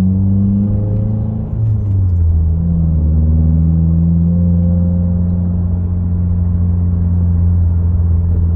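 2022 Subaru WRX's turbocharged flat-four heard while driving: a steady, loud low hum. About one and a half seconds in, the level dips briefly and the pitch drops, then holds steady again.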